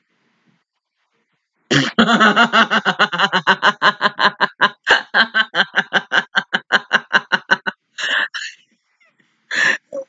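A woman laughing hard in a fast run of ha-ha pulses, about five a second, lasting some six seconds, then two shorter laughs near the end.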